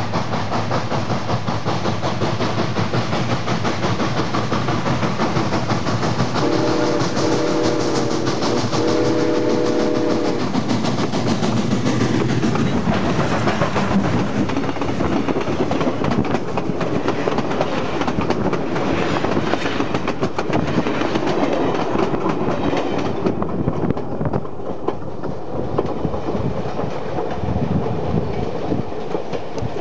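Southern Pacific No. 2472, a 4-6-2 steam locomotive, and its train rolling right over the microphone: a loud, steady rumble of wheels on rail with clickety-clack. The chime steam whistle sounds twice, two long blasts about 7 and 10 seconds in.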